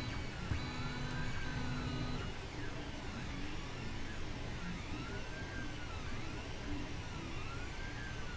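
Ender 2 3D printer's Y-axis stepper motor whining through a series of short jog moves, each whine rising in pitch and falling back as the bed speeds up and slows down, over a steady low hum.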